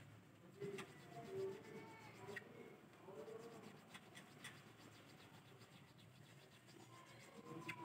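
Faint scraping of a nut file in the string slots of a bass guitar's nut, with a few light clicks, as the slots are cut deeper to lower the action at the nut.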